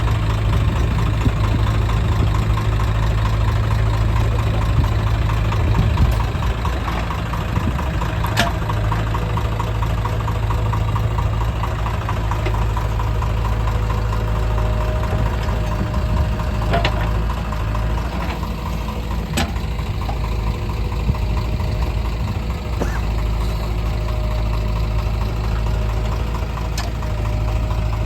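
Diesel engines of a backhoe loader and tractor running steadily at an even speed, with a few sharp metallic clanks from the working machinery.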